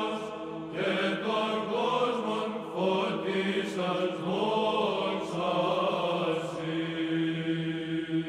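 Chanted vocal music: voices singing a slow melodic line over a steadily held low drone note, beginning to fade out near the end.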